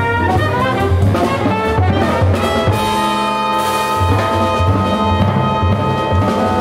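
Jazz nonet playing live: trumpet, clarinet, saxophones and trombone with bass and drums. The horns run through quick notes, then hold a sustained chord from about three seconds in while bass and drums keep time.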